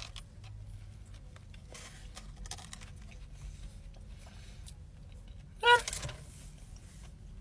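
Soft chewing of a mouthful of burger over the steady low hum of a car cabin. A brief, louder high-pitched sound cuts in about six seconds in.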